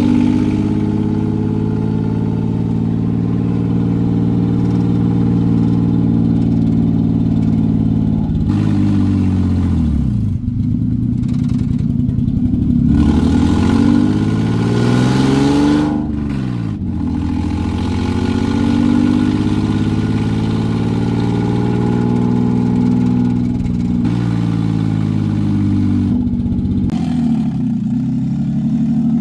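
Mk3 Toyota Supra with a swapped-in 2JZ straight-six engine being driven. The engine runs at a steady pitch at first, then its revs rise and drop back several times.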